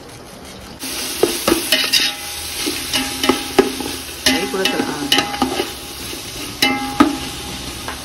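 Onions sizzling as they fry in oil in a pan, stirred with a spoon that scrapes and knocks against the pan many times. The sizzle starts suddenly about a second in.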